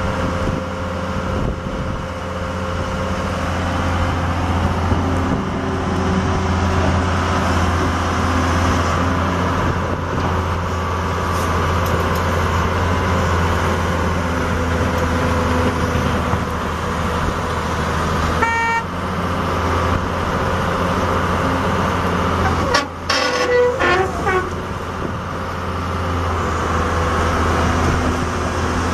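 Gradall G660E excavator's Cummins six-cylinder diesel engine running steadily, with a short horn-like toot about two-thirds of the way in.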